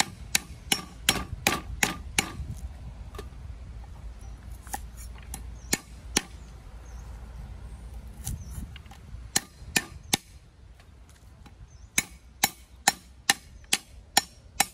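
Cleaver chopping lemongrass stalks on a round wooden chopping board: sharp knocks of the blade striking the wood, in quick runs of two or three a second. The knocks thin out to a few scattered ones for several seconds in the middle.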